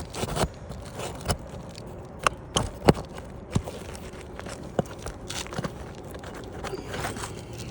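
A hand tool working a roofing nail out from under an asphalt shingle: a string of separate sharp clicks and scrapes, the loudest about three seconds in.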